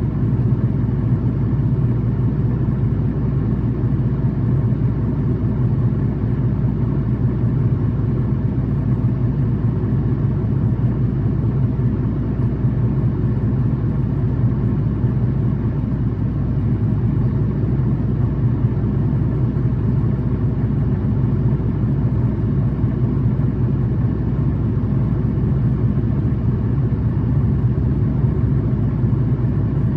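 City bus engine running steadily, heard from inside the passenger cabin, with a constant low hum that neither rises nor falls. The bus is one its fan labels high-revving and an abnormal-noise vehicle.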